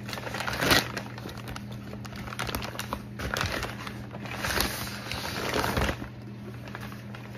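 Packaging being opened by hand: irregular crinkling and rustling with small clicks, in several spells.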